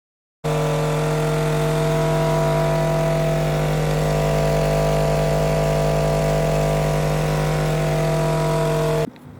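A 12-inch 1500-watt RMS Bulk Audio subwoofer playing a steady, unchanging low buzzing tone at low gain for a first test and break-in. It starts abruptly about half a second in and cuts off suddenly near the end.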